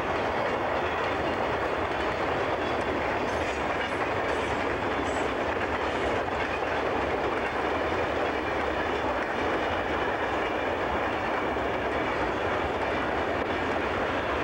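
CSX freight train rolling past at steady speed, a continuous rumble of wheels on rail that holds level throughout.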